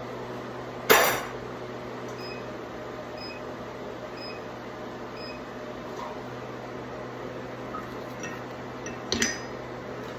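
Steady hum of shop machinery with a sharp metallic clank about a second in and a smaller one near the end.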